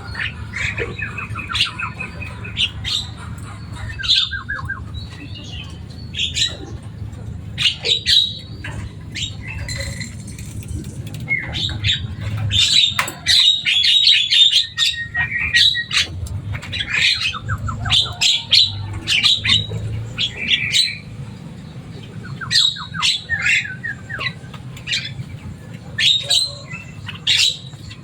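Javan myna calling busily: a continual string of sharp chirps and harsh squawks, broken by short rattling trills, over a steady low hum.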